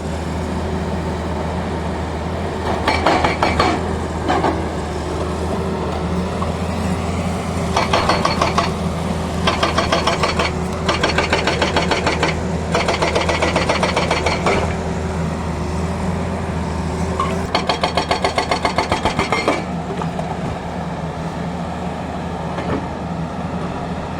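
Tata Hitachi excavator's diesel engine running steadily while its hydraulic breaker hammer pounds the road surface. The breaker comes in about six bursts of rapid hammering, each a second or two long.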